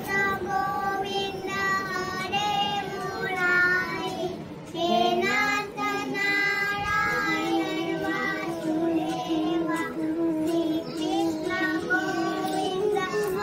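A young girl singing a song into a handheld microphone, with music under her voice.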